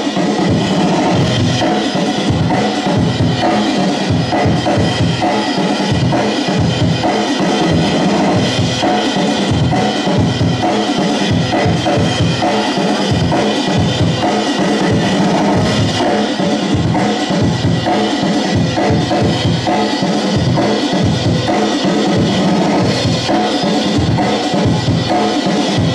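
DJ-played breakbeat music: a loud, steady drum-kit beat with kick and snare driving a constant rhythm.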